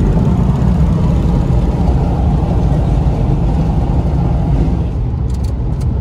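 Steady low road rumble heard from inside a car cruising on a freeway: tyre and engine noise through the cabin.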